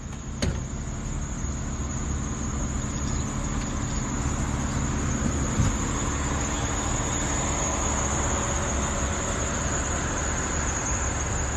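A steady rushing outdoor noise that swells over the first couple of seconds, with a sharp knock shortly after the start and another about halfway through.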